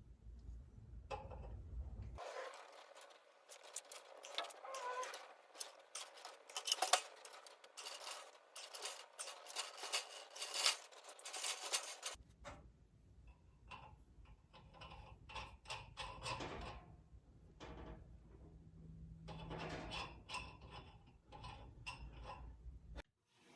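Metal tools and steel parts clinking and clattering in irregular sharp knocks and taps during hand metalwork.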